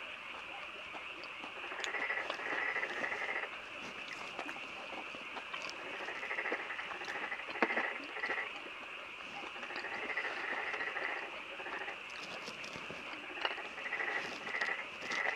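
A frog chorus: short calls repeated in clusters over a steady high drone, with a single sharp tap about halfway through.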